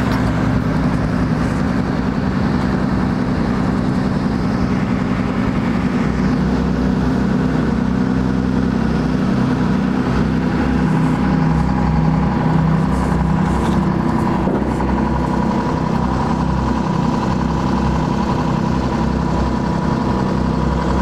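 A tugboat's diesel engine running steadily with a low, even drone while it pushes and turns the barge; a thin high whine joins about halfway through.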